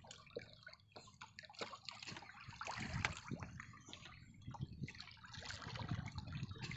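Water splashing and dripping as a hand reaches into the water and a fishing hand line is pulled up over the side of a wooden boat, with scattered light taps as a small fish is handled off the hook.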